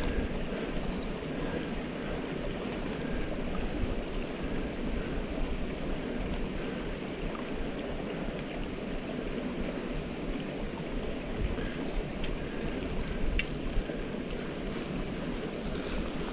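Wind buffeting the phone's microphone outdoors: a steady rushing noise with a gusty low rumble, and a couple of faint clicks.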